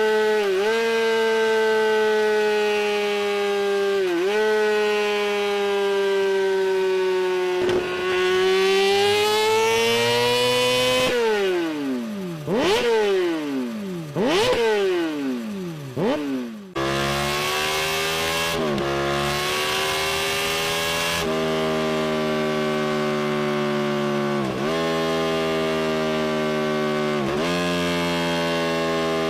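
Sport motorcycle engine breathing through an SC Project aftermarket exhaust, held at high revs with a steady drone. In the middle it is blipped hard several times, the pitch jumping up and falling away, before settling back into a steady high-revving drone.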